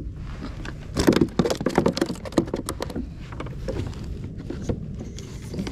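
Handling noise on a plastic fishing kayak: a quick run of clicks, knocks and rustles from hands working the tackle and gear, heaviest in the first half, then scattered lighter clicks, over a steady low rumble.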